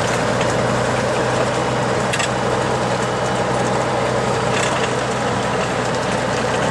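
Empty log truck's diesel engine running steadily under way, heard from inside the cab over steady road noise, with a couple of brief knocks or rattles about two seconds in and near five seconds.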